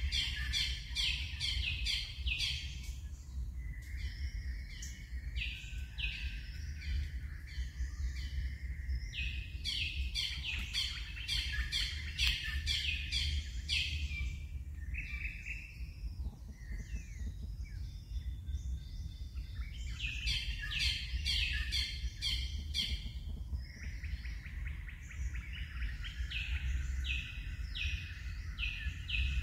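Birds calling in quick runs of short, repeated high notes, falling quiet for a few seconds past the middle, over a low steady rumble.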